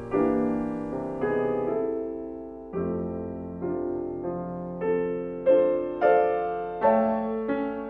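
Solo piano music: chords of several notes struck one after another and left to ring out, coming a little faster and louder toward the end.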